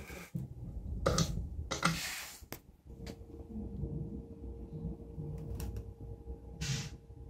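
Scattered short knocks, clicks and rustling noises over a low indoor rumble, with a faint steady hum that comes in about three seconds in.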